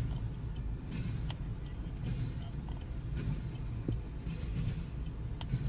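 Freight train of empty trash cars rolling past: a steady low rumble with scattered clicks and creaks of wheels over the rails.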